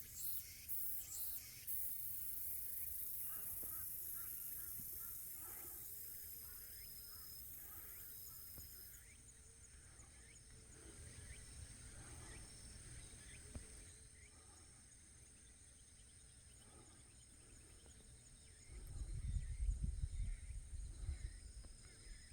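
Insects chirring steadily in mountain woodland, louder in the first few seconds, with a few faint short calls scattered through. Near the end, wind rumbles low on the microphone.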